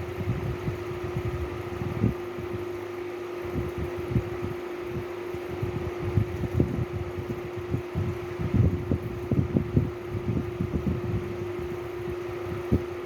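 Steady hum of a running fan, holding one constant tone over a soft whooshing haze. Irregular low bumps and rustles come and go over it, busiest about two-thirds of the way through.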